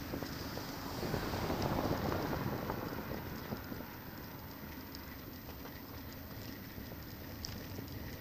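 Wind rushing over a bike-mounted camera's microphone while riding, mixed with road and traffic noise. It swells louder about a second in for two seconds or so, then settles, with a few faint ticks.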